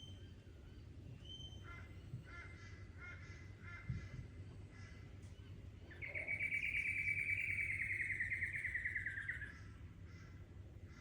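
Bush birds calling: faint short whistled notes and a few chirp series, then a loud, harsh, drawn-out call a little over halfway through that lasts about three and a half seconds and slides slowly down in pitch.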